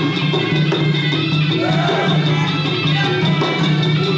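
Traditional Kun Khmer fight music: a sralai oboe playing wavering, gliding lines over steady drum beats and cymbals.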